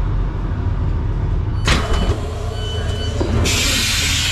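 Passenger train standing at a platform with its doors opening: a steady low hum from the train, a sudden clunk of the door mechanism a little under two seconds in, then a loud hiss of air lasting about a second near the end.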